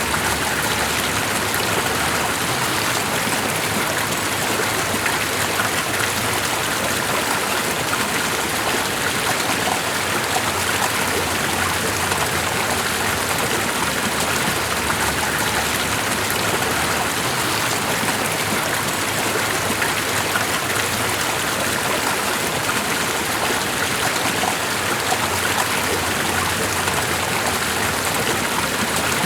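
Steady, unbroken sound of running water, as from a stream, with no breaks or changes.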